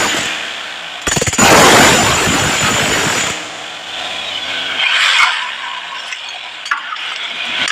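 A power tool running with a high whine, stopping just after the start and running again in a loud burst from about a second in to a little past three seconds; afterwards quieter handling with a few sharp knocks.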